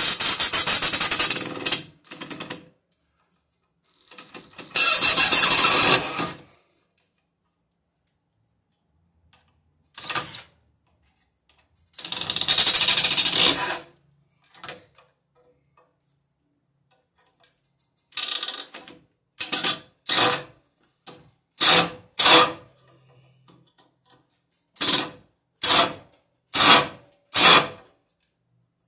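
Cordless drill/driver running at a box on a wooden ceiling beam, driving screws. It runs in three long, loud runs of one to two seconds each, then in about ten short trigger bursts near the end as the screws are seated.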